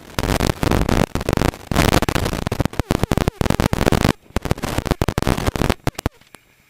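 Holden VP Commodore rally car at speed on a rough gravel stage, heard from inside as harsh, crackling, distorted in-car noise. It is loud and choppy for about four seconds, then drops away to scattered sharp clicks.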